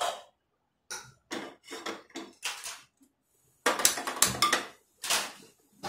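Kitchen utensils and small bowls being handled: a series of short clinks and knocks, with the loudest clatter a little before four seconds in.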